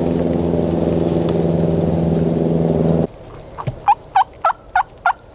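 A steady engine drone that cuts off abruptly about three seconds in, then wild turkey yelps: a rhythmic series of about seven evenly spaced notes, roughly three a second.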